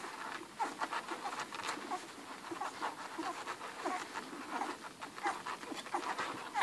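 A litter of young Irish red and white setter puppies suckling, with many short, overlapping squeaks and grunts and soft sucking clicks.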